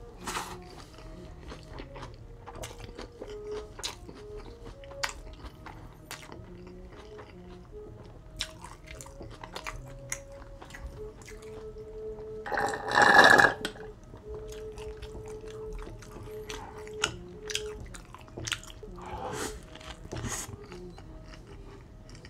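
Close-miked chewing and biting of a cheeseburger, with wet clicks of the mouth throughout, over soft background music. About twelve seconds in comes one loud slurp of about a second through a straw.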